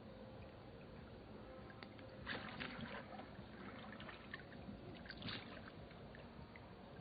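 Faint water splashing and lapping, with two short bursts of splashes, about two seconds in and again about five seconds in.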